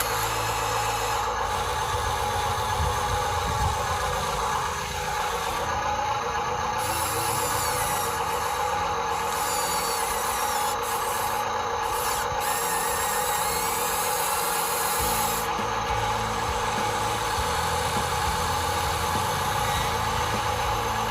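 Small electric motors and plastic gearboxes of radio-controlled construction models running with a steady whine, shifting a little in pitch as they work.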